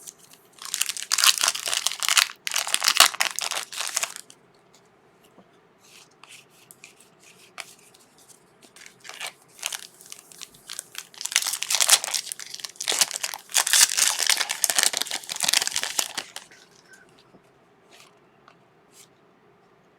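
Plastic-foil trading card pack wrappers being torn and crinkled by hand, in two long stretches of crinkling about a second in and again from about eleven to sixteen seconds, with scattered light rustles and clicks between.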